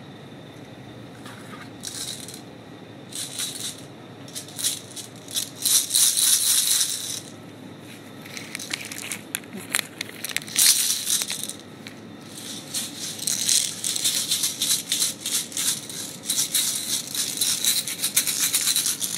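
A small plastic container of candy shaken by hand, the sweets rattling inside in irregular bursts of a few seconds with short pauses between.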